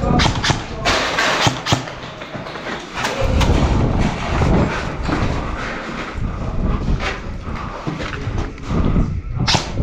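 Scattered sharp cracks from airsoft guns firing, the loudest one near the end, over a rumbling background of movement noise on the microphone.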